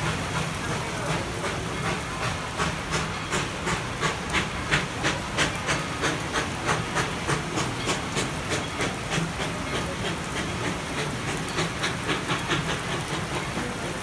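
Steam locomotive chuffing steadily at about three beats a second as it pulls the train away, the beats fading toward the end, over the steady hiss of heavy rain.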